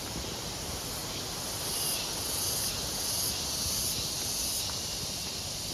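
Insects buzzing high-pitched in the tropical undergrowth, swelling in pulses of about two-thirds of a second from about two seconds in, over a steady low rumble.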